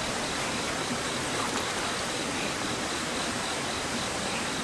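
Steady rushing of river water, an even hiss with no breaks.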